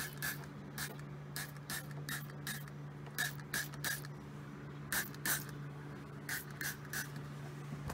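Trigger spray bottle of interior cleaner being squeezed over and over onto a car's door sill trim: about fifteen short spritzes in quick clusters, over a steady low hum.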